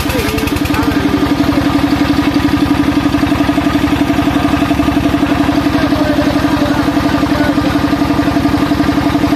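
Sawmill machinery running with a loud, steady hum and a rapid, even pulse.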